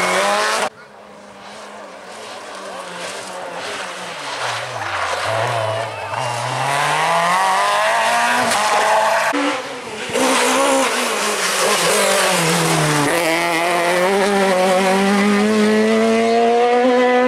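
Rally cars at speed one after another, engines revving hard. The pitch climbs as each car accelerates and falls away as it lifts and shifts down for corners, with sudden jumps between cars about a second in and near the middle.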